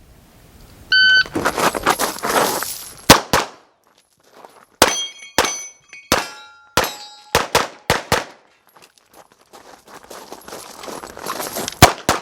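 An electronic shot timer beeps once about a second in, starting the run. About a dozen handgun shots follow, many in quick pairs, some with steel targets ringing after the hit.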